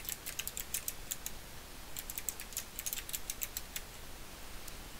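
Typing on a computer keyboard: quick runs of key clicks with a short pause a little over a second in, thinning out near the end.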